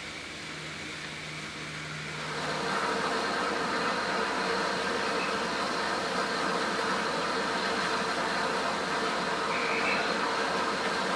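Steam locomotive approaching up the line, heard as a steady rushing of steam and exhaust that comes up louder about two seconds in.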